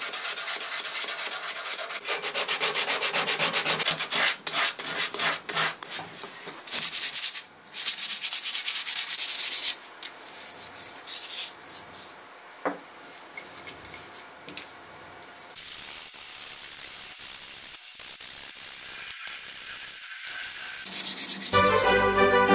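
Sandpaper rubbed by hand back and forth over bare wooden chair parts and turned spindles in rapid scratchy strokes, louder in some stretches and softer in others. Music comes in near the end.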